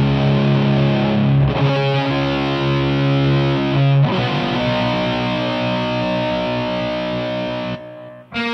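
Background music: distorted electric guitar playing long held chords that change every couple of seconds, dropping away briefly near the end before a new chord comes in.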